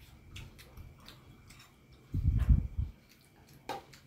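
Eating sounds: scattered small clicks and ticks of chewing and a spoon against a pan. A low, muffled thump-like rumble a little after two seconds in, lasting under a second, is the loudest sound.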